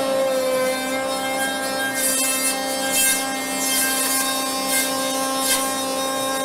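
CNC router spindle running with a steady whine while its surfacing bit planes the face of a cupped, slightly twisted oak plank flat, with short bursts of rasping cutting noise several times as it bites into the wood.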